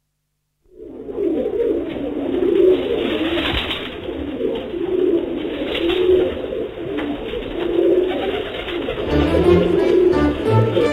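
Pigeons cooing, a series of low repeated coos over a steady background hiss. About nine seconds in, bowed string music with a cello comes in over them.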